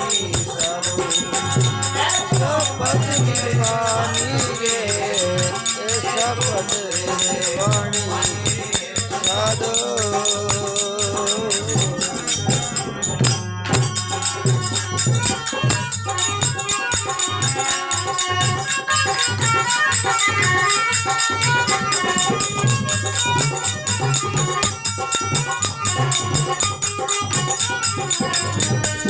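Devotional folk music (bhajan accompaniment). A steady hand-drum beat runs with a jingling rattle-type percussion, and a wavering melody line is strongest in the first half.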